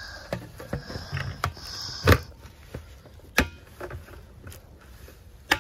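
Close handling noise from a phone held against a jacket: fabric rustling on the microphone, broken by several sharp knocks, the loudest about two seconds in.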